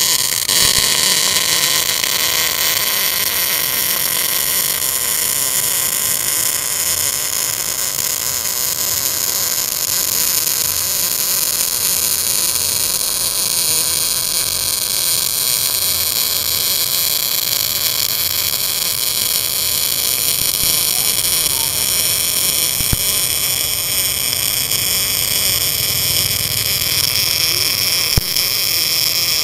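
Tenya Smart MIG 265 MIG welder's arc running one continuous bead along an inside corner of thin sheet steel: a steady, even hiss-crackle with no break.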